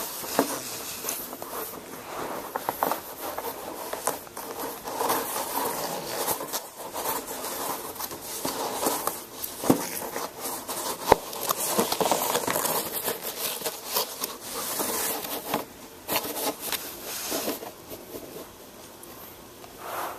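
Boston Terrier puppy tussling with a long roll of brown paper on a carpet: irregular rubbing and rustling of the paper with scattered sharp knocks, easing off in the last couple of seconds.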